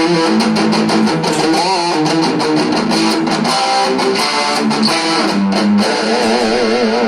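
Squier MM Stratocaster electric guitar played through a Cort MX15R amp: a run of quick picked lead notes, several with wavering vibrato, ending on a held, wavering note.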